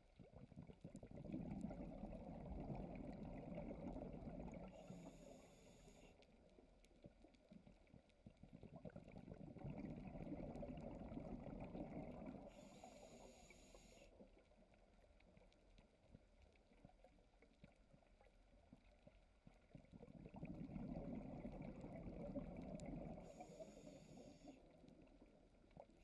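Scuba diver's breathing heard underwater: three long crackling rumbles of exhaled bubbles, about ten seconds apart, each ending with a short high hiss from the regulator.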